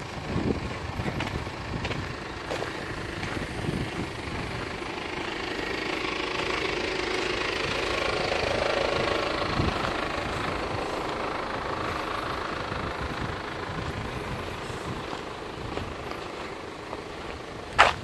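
A passing motor vehicle, its noise swelling to a peak around the middle and then fading. A single sharp knock sounds just before the end.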